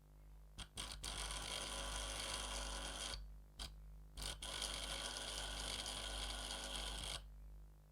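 Electric arc engraver tip buzzing and crackling against a steel tool as it engraves. It starts with a few clicks about half a second in, runs for about two seconds, breaks off briefly, then runs for about three seconds more and stops near the end.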